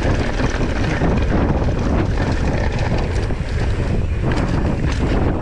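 Wind buffeting the camera microphone as a mountain bike rolls fast down a dirt trail, with steady tyre and trail rumble and frequent small knocks and rattles from the bike over bumps.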